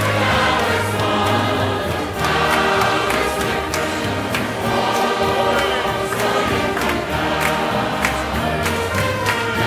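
Large church choir singing a gospel song with instrumental accompaniment, sustained chords and a steady beat.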